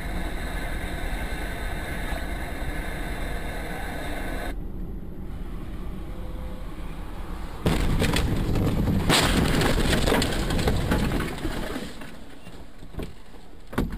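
Dashcam recording of a car's cabin road noise, then, about eight seconds in, a sudden loud crash followed by about four seconds of loud scraping and rushing noise as a car leaves the icy highway. A single sharp knock comes near the end.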